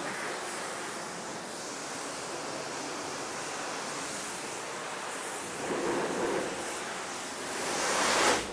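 Self-service car wash pressure-washer lance spraying high-pressure water onto a foam-covered car: a steady hiss that swells briefly, builds near the end, then cuts off suddenly as the spray stops.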